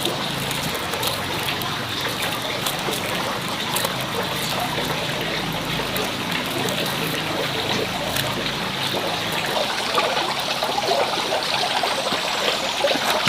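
Water running and trickling steadily, with small scattered clicks.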